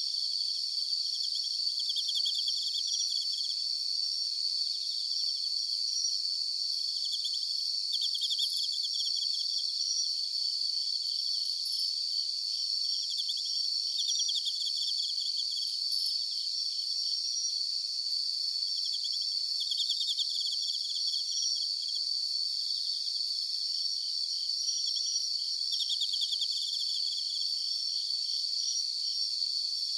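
Night insects chorusing: a steady high-pitched cricket trill, with shorter pulsed trills from other insects coming in every few seconds.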